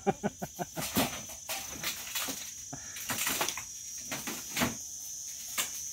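Insects chirping steadily in a high, thin drone, with a quick run of clicks in the first second and a few scattered knocks after.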